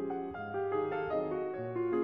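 Background piano music, several notes sounding together and moving on every fraction of a second.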